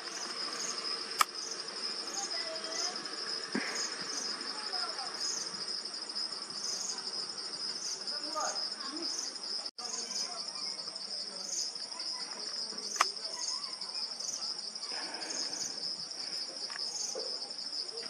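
Insects chirring: a steady high-pitched buzz with a faint regular pulse a little faster than once a second. A sharp click comes about a second in and another about three-quarters of the way through.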